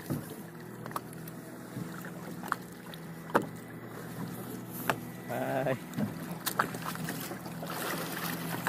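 Boat engine running steadily at idle, a low drone, with scattered sharp knocks on the boat.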